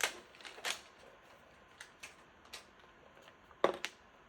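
Protective wrap being pulled off a new Mac Mini by its tab: light crinkling and rustling with scattered clicks, and a sharper knock about three and a half seconds in.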